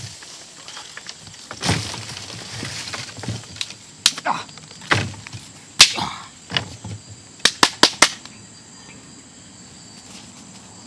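Dry branches being pulled, dragged and broken by hand and foot onto a pile: rustling and scraping with irregular sharp snaps, the loudest about six seconds in and a quick run of four cracks soon after, then it settles to quiet outdoor background.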